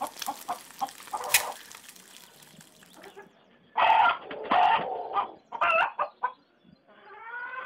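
Chickens: after some rapid crackling clicks at the start, a hen clucks in several loud bursts, then a rooster crows near the end.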